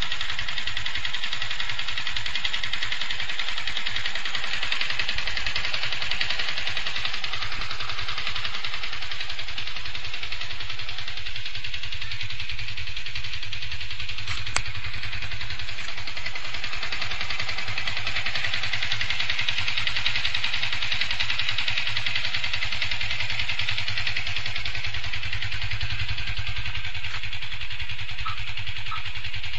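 Yamaha FZ150i's single-cylinder engine running steadily with a dense, even clattering noise. The owner says the noise persists after replacing the engine bearing and the primary driven gear, and suspects the valves might need replacing.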